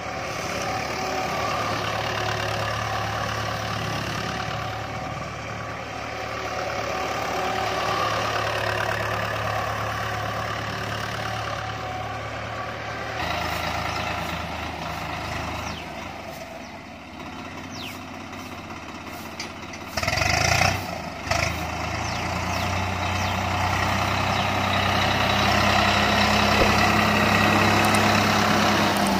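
Diesel tractor engines running under load as the tractors drive over dry stalks: first a Mahindra 575 DI's four-cylinder diesel, then, after a cut about a third of the way in, a Swaraj 744 FE's three-cylinder diesel driving a rotary tiller. Brief loud bursts of noise come about two-thirds of the way in, and the engine note is louder and steadier near the end.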